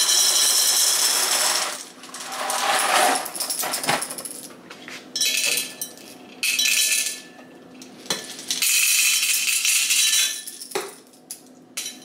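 Dry penne pasta poured from a cardboard box into a glass jar, the pieces clattering and rattling against the glass. It comes in several pours with short pauses between, and a few single clinks of glass.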